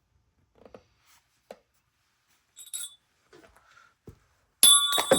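Small handling clicks and knocks, a brief metallic clink about halfway through, then near the end a loud metallic clang that rings on for about a second, as the chainsaw's tank is filled and the gear set down.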